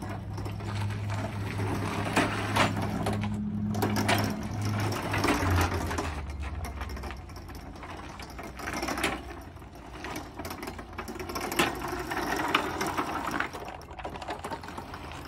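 Two old wheelchair motors driving a mower chassis through roller chains: a low electric motor hum under a loud rattle and clatter from the chains, with scattered clunks as it moves and changes direction. The chain noise comes from loose, worn sprockets on an ungreased shaft.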